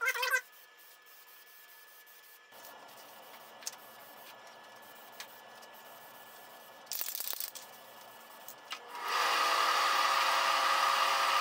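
Aerosol can spraying polyurethane finish in short hisses, the strongest burst about seven seconds in. About nine seconds in, a much louder steady whirring with a held whine starts and keeps going.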